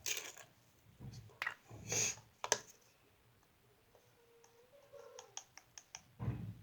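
Clicks and knocks of kitchen utensils and containers being handled while measuring and adding salt: a few louder ones in the first few seconds, a quick run of light clicks later, and a dull thump near the end.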